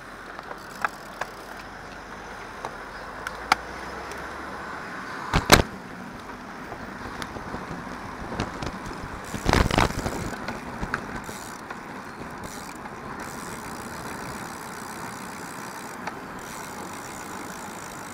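Steady wind and road noise from a road bicycle ridden in a group, with passing motor traffic. Several sharp clicks come in the first few seconds, a loud knock about five and a half seconds in, and a brief cluster of knocks near ten seconds.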